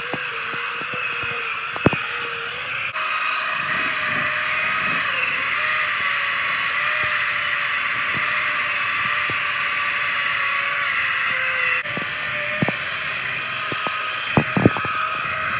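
Porter-Cable belt sander running, its belt sanding the edge of a plywood piece with a steady whine. A few sharp knocks come near the end.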